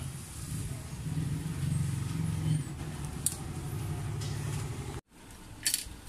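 Low, steady rumble of a motor vehicle's engine running nearby, loudest in the first half. A single sharp metallic click about three seconds in comes from pliers working a bicycle gear-cable end. The sound cuts out for an instant about five seconds in, and another sharp click follows near the end.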